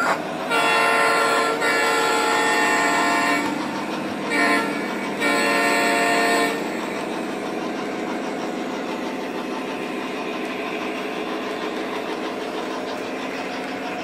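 Model diesel locomotive's electronic horn from the onboard sound system of a Lionel O-gauge SD60M. It sounds two long blasts, a short one and a long one, the grade-crossing signal, followed by steady diesel engine and wheel sound as the train runs.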